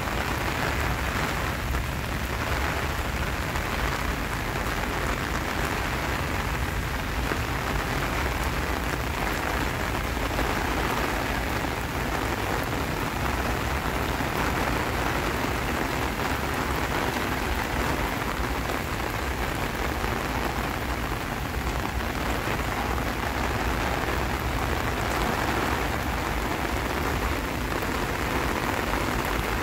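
Steady rain falling, an even hiss of rain on surfaces with no breaks.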